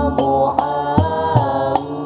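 Hadrah Al-Banjari music: young men's voices singing a sholawat melody together with gliding ornaments, over a steady beat of terbang frame drums with a few deep bass-drum strokes.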